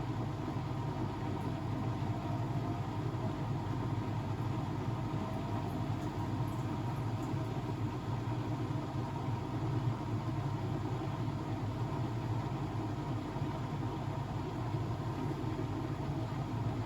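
Blomberg WAF 7442 SL washing machine running with a steady low hum and rumble.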